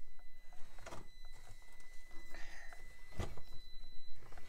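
Traxxas TRX-4M micro crawler with a PN Racing 90-turn high-torque 180 brushed motor crawling over rocks: a faint steady high motor whine with scattered clicks and knocks of tyres and chassis on rock, one louder knock about three quarters of the way through.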